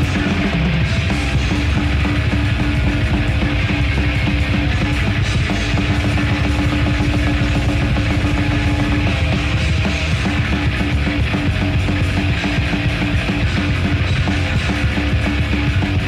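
Death metal band playing live: heavily distorted guitars, bass and drums in a loud, dense, unbroken wall of sound.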